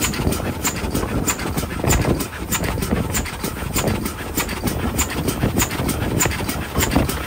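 GWR 2-6-2 Prairie tank steam locomotive No 5552 working a train along the line, heard from close beside it: a steady, regular beat of exhaust and running gear over the rumble of wheels on rail.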